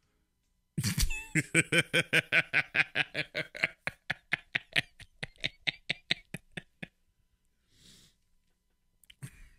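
A man laughing in a long run of high, breathy bursts, about five a second at first, that slow down and fade out.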